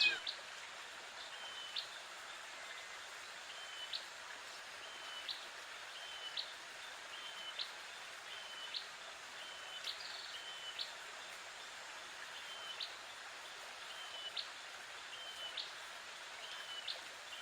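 A bird calling over and over, a short call with a sharp upward flick about once a second, over a steady outdoor hiss of running water.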